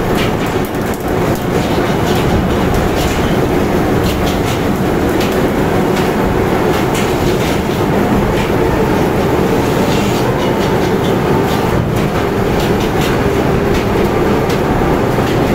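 Fish-hold conveyor on a tuna boat running: a steel chute rattling and knocking as tuna slide off it into a tank of rushing, splashing water, over a steady machinery hum. Irregular sharp knocks sound throughout.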